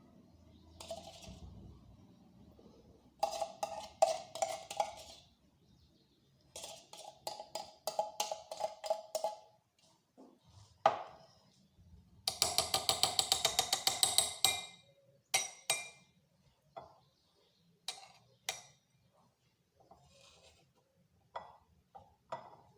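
A spoon stirring an oily paste in a small glass, clinking rapidly against the glass in three runs of about two to three seconds each, followed by a few single taps.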